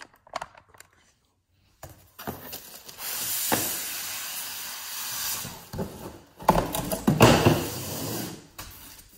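Foam packing and cardboard scraping and rubbing as a boxed appliance in foam end caps is slid out of its cardboard box. A steady rubbing comes first, then louder scraping about two-thirds of the way through.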